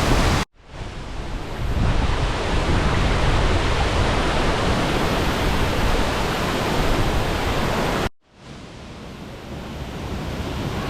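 Loud steady rush of a waterfall. It cuts out abruptly twice, near the start and about eight seconds in, and swells back each time.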